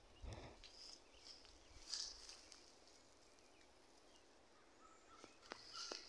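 Faint, scattered bird chirps, a few short high calls from birds feeding in berry-laden trees, with a brief low thump of camera handling near the start.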